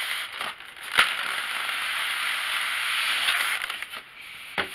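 A white inner case sliding out of a cardboard shipping box: a sharp knock about a second in, then a steady scraping rush of the case rubbing along the cardboard for a couple of seconds, and a click near the end.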